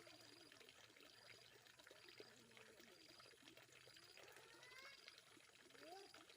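Near silence: a faint trickle of water runs under a short, high chirp that repeats about once a second, with faint distant voices.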